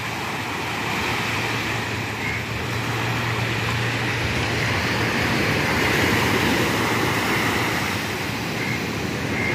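Surf washing onto a sandy beach: a steady rushing noise with a low rumble underneath.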